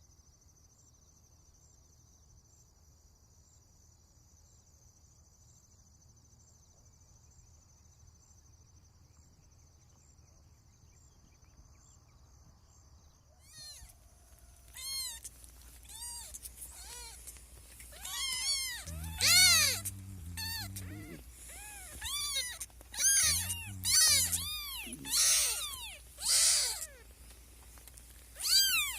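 Near silence with a faint steady high tone for about the first half, then kittens meowing over and over: high-pitched calls that rise and fall, several overlapping, getting louder toward the end.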